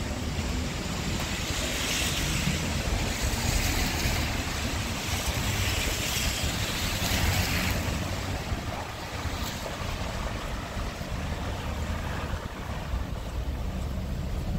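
Wet street ambience: tyres hissing on wet asphalt as a car passes, the hiss swelling over the first few seconds and fading after about eight seconds. A steady low rumble of city traffic runs underneath.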